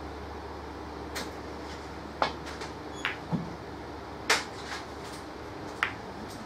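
Snooker balls clicking as a shot is played: the cue tip striking the cue ball, then balls knocking together and off the cushions. There are about half a dozen sharp clicks spread over several seconds, two of them louder than the rest, and one duller knock.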